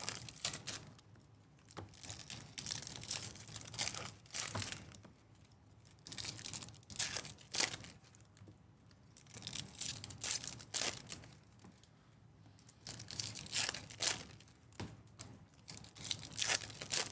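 Foil wrappers of Topps Series 2 baseball card packs being torn open and crinkled, in irregular bursts of rustling every few seconds.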